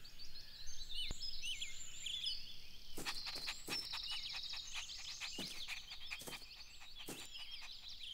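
Soft nature ambience of small birds chirping and twittering, with a short buzzing trill about three seconds in.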